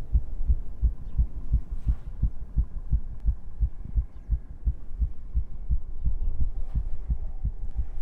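Low, rapid heartbeat-like thumping on the soundtrack, about four thumps a second, steady throughout.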